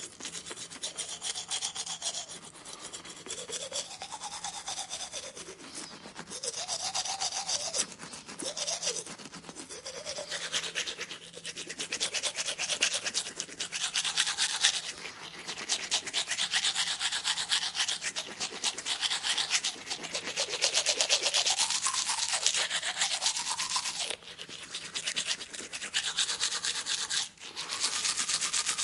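Teeth being brushed: rapid back-and-forth scrubbing strokes with a pitch that keeps rising and falling, swelling louder several times.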